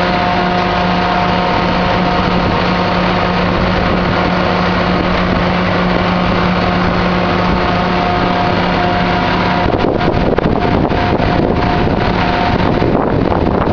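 Implecor M 1090 self-propelled silage bagger running steadily under load while chopped forage pours into its intake hopper. About ten seconds in, the steady hum drops away and wind buffets the microphone.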